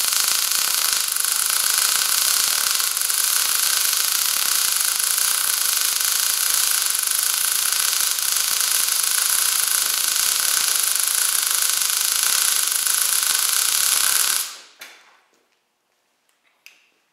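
MIG welding arc on steel plate, 0.035-inch wire fed vertical-up: a steady sizzling hiss that stops abruptly about fourteen and a half seconds in as the trigger is released, followed by a few faint clicks.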